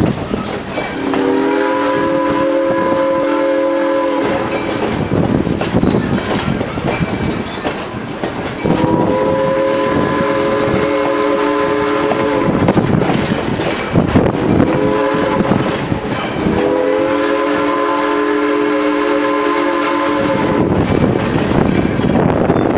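Steam locomotive's chime whistle sounding the grade-crossing signal: two long blasts, a short one, then a long one. Under it runs the steady rumble and clatter of the passenger coach's wheels on the rails.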